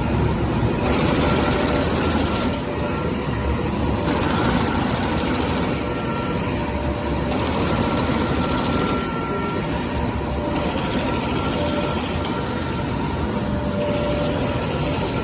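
Automatic folder gluer for corrugated cartons running, a steady mechanical clatter with a few faint steady tones. A high hissing layer switches on for under two seconds about every three seconds as the machine cycles.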